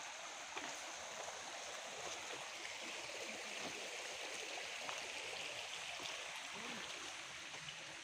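Shallow forest stream flowing: a steady, even rush of water.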